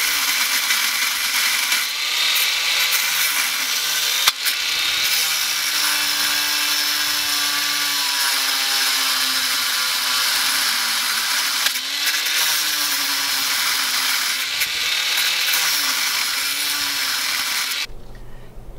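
A power tool cutting through the metal of a Nissan 350Z's stock front strut: a steady, high hiss, with the motor's pitch sagging and recovering as it bites into the metal. It stops about a second before the end.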